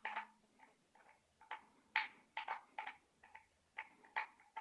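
Small metal parts of an IKEA OLOV adjustable table leg being handled: about a dozen short, irregular clicks and taps, several with a brief metallic ring.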